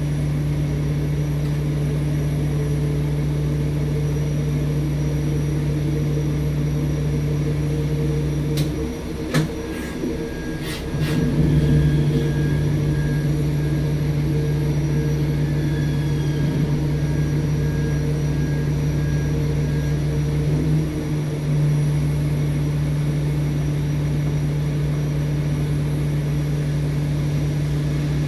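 Steady low mechanical drone of pushback machinery at an Airbus A350's nose gear, a constant hum with overtones. About nine to eleven seconds in, a few sharp clicks and knocks break in, and a faint steady high tone sounds for several seconds after.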